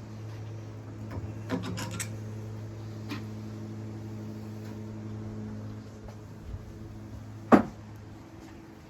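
Metal tools clinking and knocking against engine parts during a teardown: a quick run of clicks about a second and a half in, another near three seconds, and one loud clank about seven and a half seconds in, over a steady low hum.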